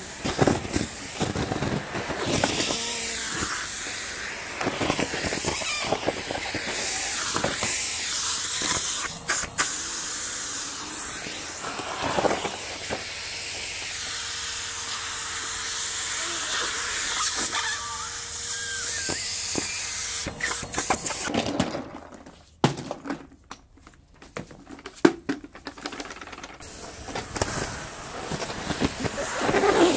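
Henry 160 cylinder vacuum cleaner running, its airflow hissing steadily as leaves crackle and rattle up the hose. The sound drops away suddenly about three-quarters of the way through, and noise builds again near the end.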